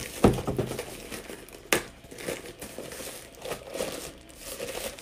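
Clear plastic wrap crinkling as a mesh Wi-Fi router unit is unwrapped and handled in its cardboard box. Two sharper knocks stand out: a loud one just after the start and another a little under two seconds in.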